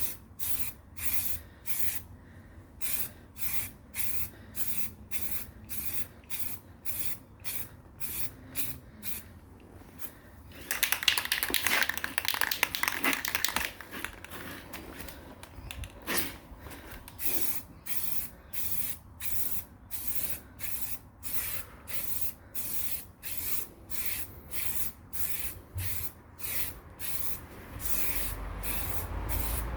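Rust-Oleum 2X Ultra Cover aerosol spray can spraying paint in short hissing bursts, about two a second, laying a light first coat on a plastic grille. About a third of the way in there is one longer, louder spray of about three seconds, followed shortly by a sharp click.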